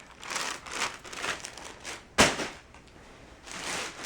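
Rustling and crinkling of packaged backdrop cloth being handled, with a single sharp knock about two seconds in.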